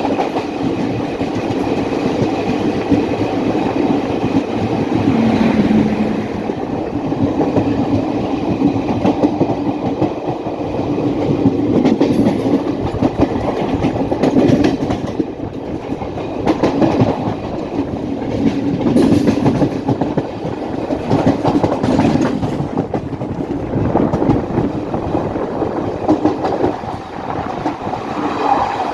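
Train wagons rolling along the track, with steady rumbling and wheels clacking repeatedly over the rail joints.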